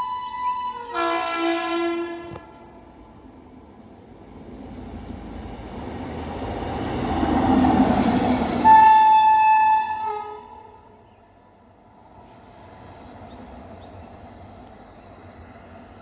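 WAG-9 electric locomotive sounding its horn about a second in, then passing close by with a rumble that swells to a peak around eight seconds in. A second, louder horn blast starts suddenly there and lasts about a second and a half. Afterwards the noise drops to a faint, steady train rumble.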